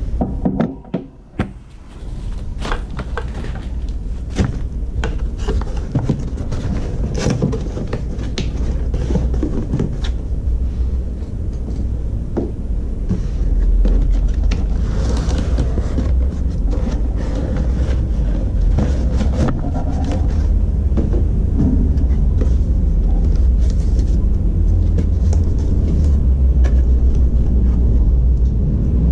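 Cardboard box and packaging being handled: flaps and inserts scraping and rustling, with many short clicks and knocks, over a steady low rumble.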